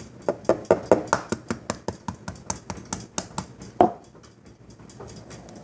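Rapid light clicks of a utensil against a measuring cup, about five a second, stopping about four seconds in.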